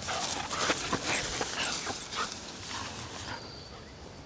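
White dog whining in a quick string of short, high-pitched cries that die down after about three seconds.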